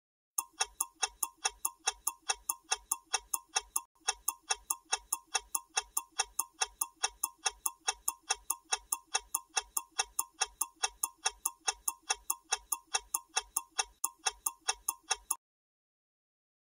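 Clock-style ticking sound effect of a quiz countdown timer, evenly spaced at about four ticks a second, stopping suddenly when the timer reaches zero.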